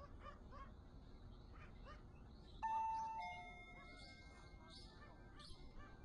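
Electronic two-tone door chime rings once about two and a half seconds in, a higher note followed by a lower one, each ringing out and fading. Before it, a bird chirps in quick repeats, about three a second.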